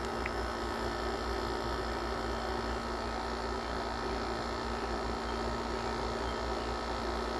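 Kenmore 5250 BTU window air conditioner running steadily with the compressor on: a constant hum with a very light, dry noise from the fan that sounds like dry fan bearings, though the owner doubts new bearings would cure it.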